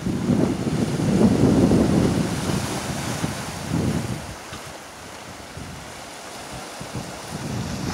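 Small sea waves washing over the rocks of a rocky shore, with wind buffeting the microphone in low gusts. The gusts are strongest in the first three seconds and again briefly about four seconds in, then the surf goes on more quietly.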